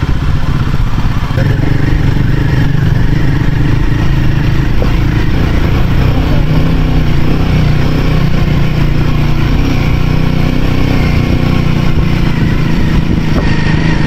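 Royal Enfield Himalayan 450's single-cylinder engine running steadily, with the radiator cooling fan switched on as the engine runs hot.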